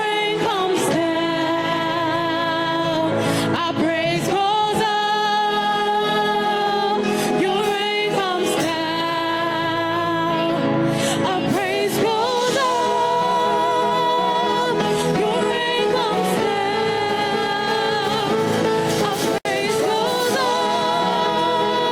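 Gospel singing: a solo voice holding long, wavering notes over instrumental accompaniment, with a momentary dropout in the sound about nineteen seconds in.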